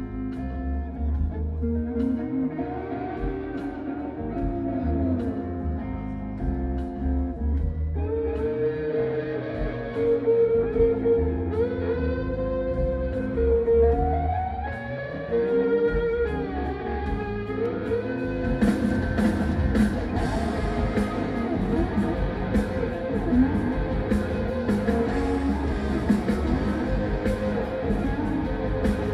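Live rock band recorded from the audience: an electric guitar plays long, sustained lead notes with bends over a steady bass line. A drum kit with cymbals comes in about two-thirds of the way through.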